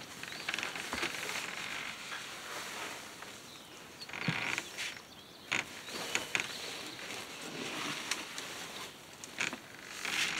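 Rustling of woven plastic feed sacks and a scoop digging into chicken feed, with a few sharp knocks and clicks.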